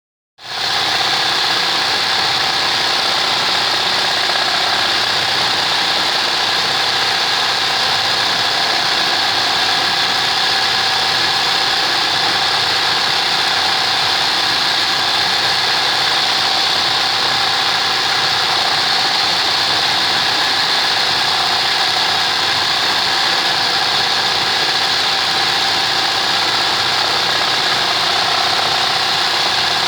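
Sewing machine used for free-hand embroidery, running steadily at high speed without a break.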